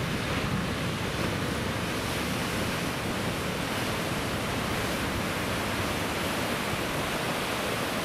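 Heavy ocean surf breaking and washing over coastal rocks, a steady rush of churning water, with wind rumbling on the microphone.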